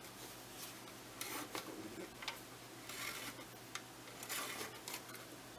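Film-advance winding key of a 1926 Zeiss Ikon Box Tengor 54/2 box camera turned by hand in several short goes, giving faint, irregular bursts of dry clicking and rasping as the film is wound on to the next frame.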